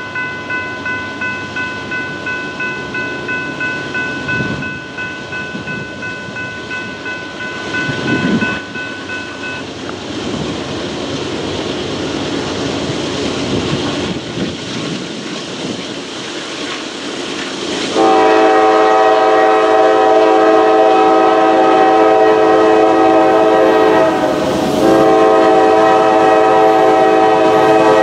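A grade-crossing warning bell dings steadily and stops about a third of the way in. About two-thirds in, the Nathan K5LA five-chime horn of an approaching Norfolk Southern GE AC44C6M locomotive sounds a long, loud blast for the crossing, breaks off briefly, and sounds again.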